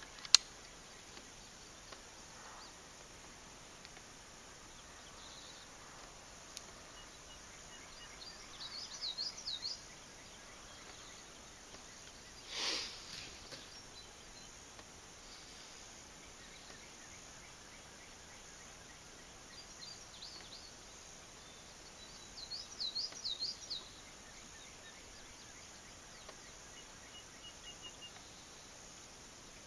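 Quiet open-field ambience with a songbird singing short runs of quick high chirps, twice, about nine and twenty-three seconds in. A sharp click sounds right at the start, and a brief rush of noise about halfway through.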